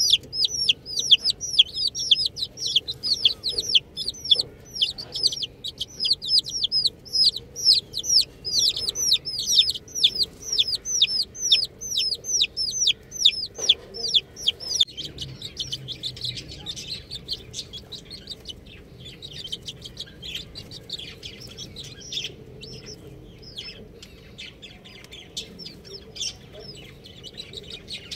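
Baby chicken chicks peeping: a steady run of high, falling peeps about three a second, turning fainter and more scattered about halfway through.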